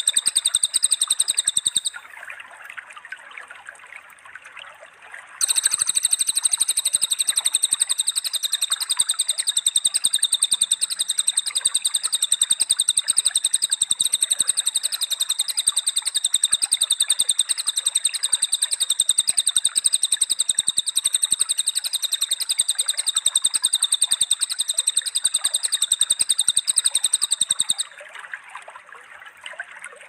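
Bird-song training recording mixing lovebird, cililin (crested jay) and canary song: a long, very fast, even high trill that breaks off about 2 s in, resumes about 5.5 s in and stops again near the end, with fainter chirping in the gaps.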